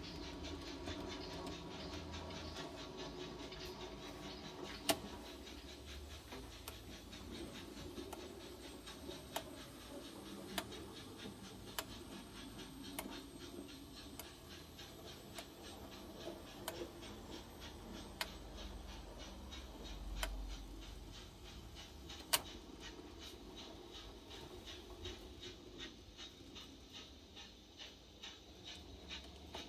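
Model railway steam locomotive driving onto a motorised turntable and the turntable bridge turning. A faint whirr of small motors runs under a steady run of light ticks, with a couple of sharper clicks.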